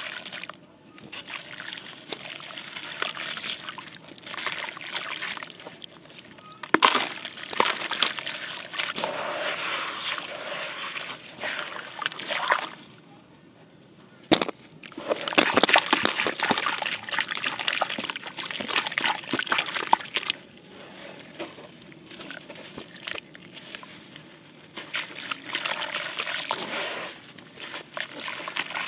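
Wet, gritty sand-concrete being squeezed and crumbled by hand in a basin of water: irregular splashing and sloshing as handfuls of wet grit drop back into the water. About halfway there is a quiet pause of a second or two, ended by a sharp click.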